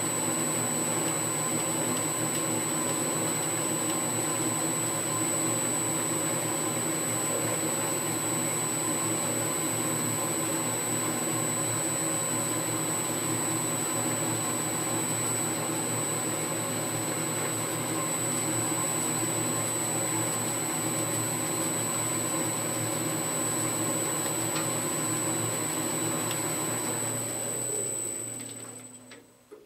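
Boxford AUD lathe running under power from an electric motor on a variable-frequency inverter: the spindle, belts and pulleys turn with a steady mechanical hum and a constant high-pitched whine. Near the end it slows and runs down to a stop.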